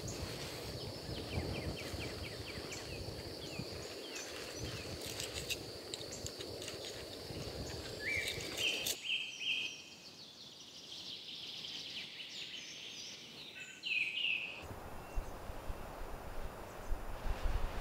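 Outdoor ambience in three edited segments: a steady high whine with faint chirps, then birds calling with quick chirps and glides for about five seconds, then a low rumbling noise with a few knocks near the end.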